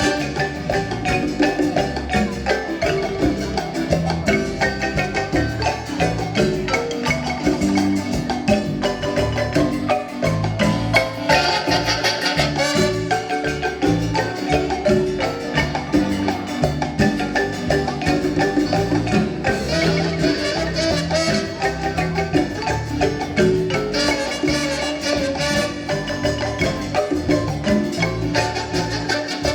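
Chiapas marimba playing a lively tune without pause, with many quick mallet strokes over a low bass part.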